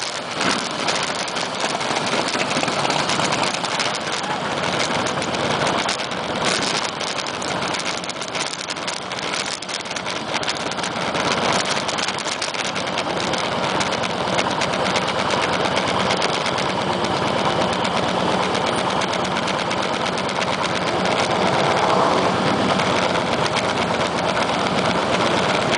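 Motorcycle engines idling and running at low speed, a steady engine noise throughout.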